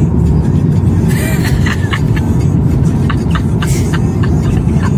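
Steady low road and engine rumble of a moving car, heard from inside the cabin, with a few short sharp sounds over it.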